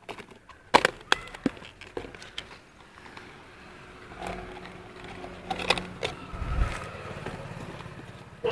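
Plastic food containers and lids clicking and knocking as they are handled, a few sharp knocks in the first couple of seconds, then a faint low rumble.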